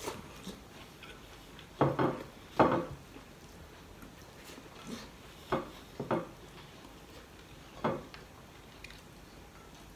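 Eating by hand: a string of short clinks, scrapes and mouth sounds as rice is gathered from a ceramic plate with the fingers and eaten, the loudest a little after two seconds in.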